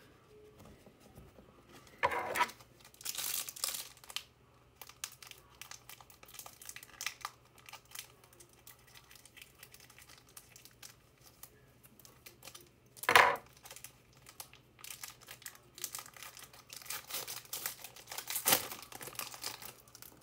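A trading-card pack wrapper being torn open and crinkled, in several bursts of rustling, the loudest about 13 seconds in.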